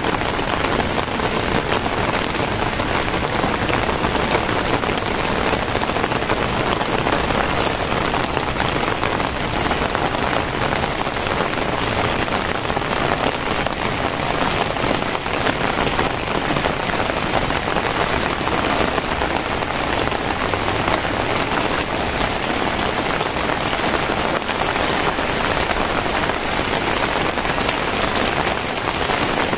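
Very heavy rain falling steadily, a dense even downpour on surfaces.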